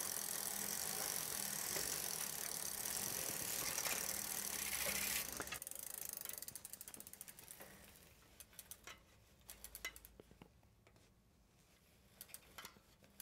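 Bicycle drivetrain spinning in a work stand, with a rag held against the cassette: a fast, steady ratcheting tick of chain and rear hub running over the cogs. It slows and fades out about six to eight seconds in, leaving a few scattered faint clicks.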